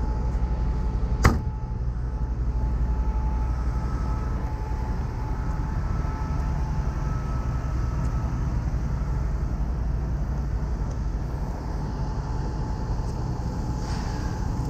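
Heavy tow truck's diesel engine idling steadily, with a faint steady whine over it and one sharp knock about a second in.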